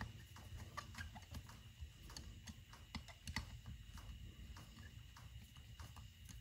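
Faint, irregular clicks and taps of small metal parts and hand tools being handled as velocity stacks are fitted to a Weber 44 IDF carburetor, over a low steady hum.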